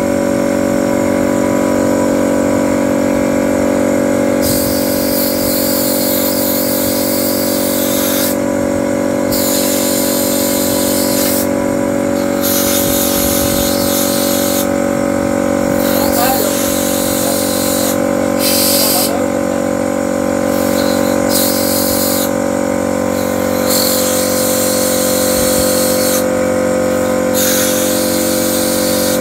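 Steady mechanical drone of workshop machinery, overlaid by a hissing noise that switches on and off every few seconds.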